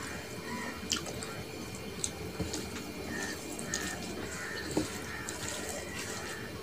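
Fingers mixing rice with curry on a metal plate: wet, sticky squishing with a few sharp clicks of fingertips against the plate.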